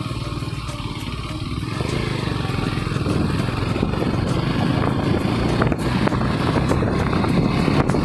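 KTM Duke 250's single-cylinder engine running while the motorcycle is ridden, with a rougher rumble growing louder after about two seconds.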